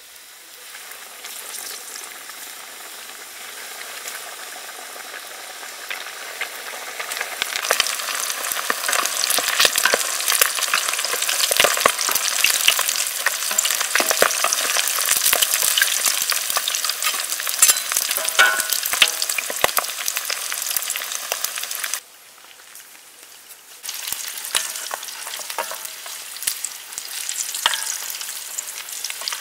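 Battered chicken legs deep-frying in hot oil in a metal wok: a dense sizzling and crackling that swells over the first several seconds as the legs go in. About two-thirds through it drops away suddenly for a couple of seconds, then comes back a little quieter.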